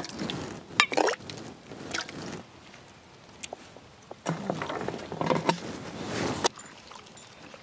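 A steel ladle scooping and stirring crushed pomegranate arils and juice in a stone mortar: wet sloshing and swishing, with scattered clicks of the ladle.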